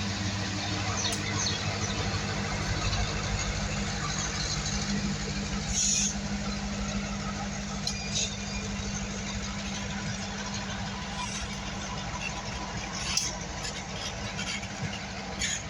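A train passing: a steady rumble of rolling wheels with a low engine drone that fades over the first several seconds, and a few brief high squeals and clicks from the wheels on the rails.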